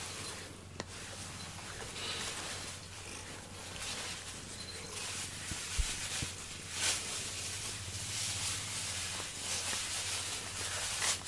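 Pet grooming brush stroked repeatedly through a cat's fur, making soft rubbing swishes, with a couple of small knocks about six seconds in.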